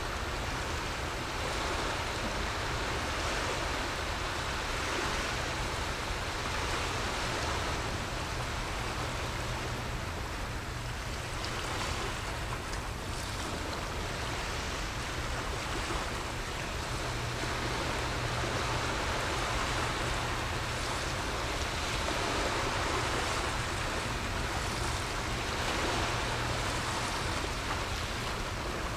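Small waves washing against the shore, swelling and easing every few seconds, over a steady low rumble.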